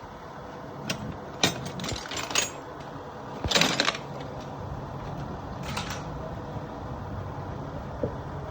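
Metal tools and parts clinking and tapping during work on a differential's pinion, with a short, harsher rattle about three and a half seconds in and a smaller one a couple of seconds later, over a steady low hum.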